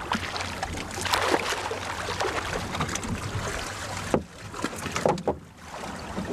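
Water splashing and sloshing around a small boat as scuba divers climb aboard, with wind noise and irregular knocks of gear against the boat.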